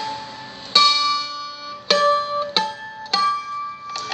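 Seagull Merlin strummed in harmonics across all its strings, the fretting finger barely touching the strings and lifting as they are struck. About five strums, each ringing on in clear sustained tones; the second, under a second in, is the loudest.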